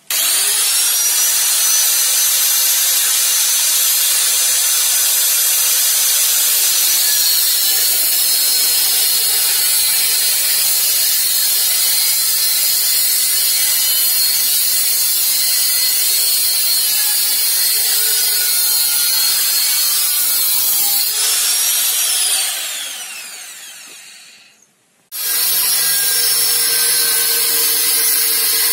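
Handheld angle grinder with a thin cutting disc spinning up and cutting a small clamped metal piece, a steady high whine under the cutting noise. About 22 s in it is switched off and the whine falls away, then it starts again and cuts on.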